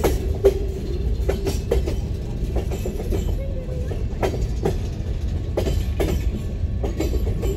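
Freight train of boxcars rolling past close by: a steady low rumble with irregular clanks and clicks from the wheels and couplings.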